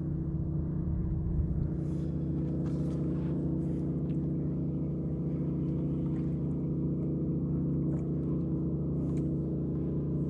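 Steady low hum of the bass boat's motor running, unchanging in pitch and level.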